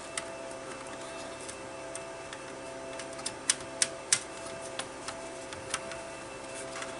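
Small scattered clicks and taps of a car DVD player's sheet-metal disc mechanism being handled and fitted into its chassis, with three sharper clicks close together about three and a half seconds in. A steady hum lies under them.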